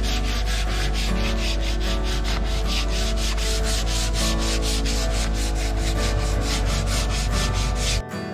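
Hand sanding of faired body filler on a steel boat hull: quick, even back-and-forth scratching strokes, about four a second, that stop abruptly near the end.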